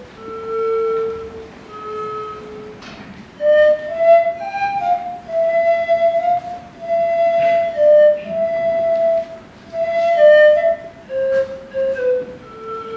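A solo flute playing a slow melody one note at a time, the notes held for about half a second to a second and moving within a narrow range.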